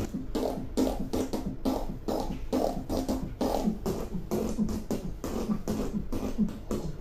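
Beatboxing: a steady rhythm of sharp, drum-like vocal clicks and hisses, about three to four a second, with short low pitched tones between them.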